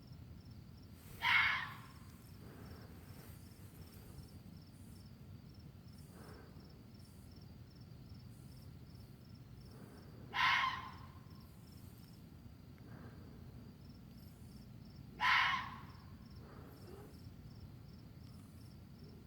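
An unidentified animal's short, harsh call, given three times, each about half a second long and sliding down in pitch at its end, over a steady low background hiss.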